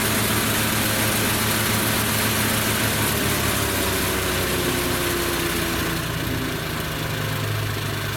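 Lumag Rambo HC15 wood chipper's petrol engine running steadily. It gets a little quieter and duller from about six seconds in.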